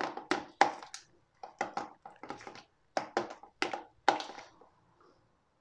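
Strained yogurt and red cabbage pickle juice being stirred in a plastic bowl: a quick series of wet scraping, squelching strokes, two to three a second, stopping about four and a half seconds in.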